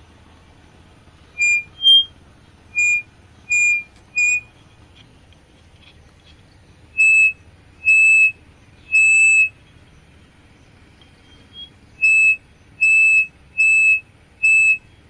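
Small loudspeaker squealing in short high-pitched bursts, about a dozen in three groups, each a steady tone lasting half a second to a second over a faint hum. This is acoustic feedback: a piezo buzzer disc wired as a microphone into a small amplifier is brought against the speaker, and the loop rings at the disc's resonance.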